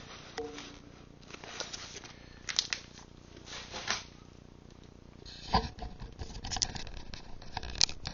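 Packaging being handled: crinkling and rustling with scattered light taps and clicks, and a dull knock about five and a half seconds in.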